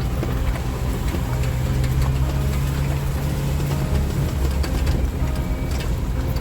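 Small Suzuki SJ-series 4x4's engine running under way, heard from inside the cabin. It comes with light rattles and knocks, and the engine note changes about four seconds in.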